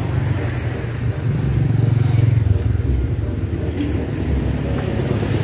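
Motor vehicles passing on a road, cars and motorcycles, making a low engine rumble that swells about a second in and eases again after about three seconds.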